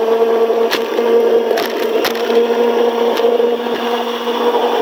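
Electric winch motor running steadily under load, pulling its line tight, with a steady hum and a few sharp cracks or clicks.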